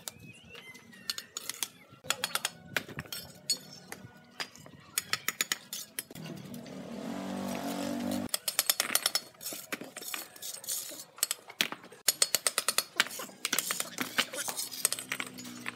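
Steel bricklaying trowel clinking and scraping against bricks and mortar: many sharp taps as bricks are set and knocked down into the mortar bed. A steady low hum joins for a couple of seconds near the middle.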